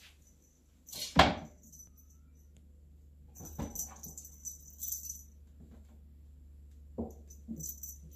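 Bengal kitten jumping onto a carpeted cat tree: one loud thump about a second in as it lands, then a light, high jingling rattle as it bats a toy hanging on a string, and softer thumps near the end.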